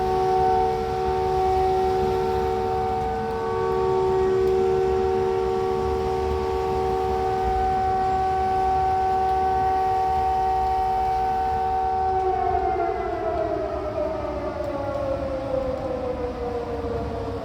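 Noon siren sounding a loud, steady tone of several pitches together for about twelve seconds, then its pitch falls slowly toward the end.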